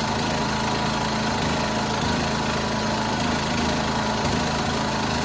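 1976 John Deere 300 garden tractor's single-cylinder Kohler engine running steadily after a hard start.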